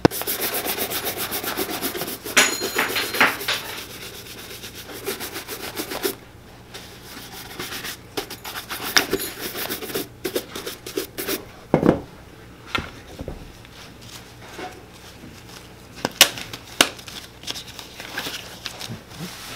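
Rapid, brisk rubbing strokes against a leather boot for about six seconds, then quieter scattered clicks and handling noises.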